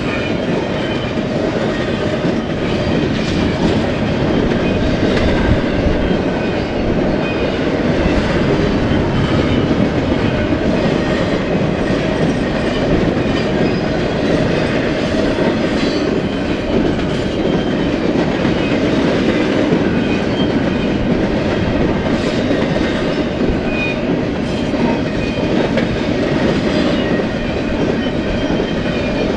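Freight train cars rolling steadily past, a constant rumble of wheels on rail with a light clickety-clack of wheels over the rail joints.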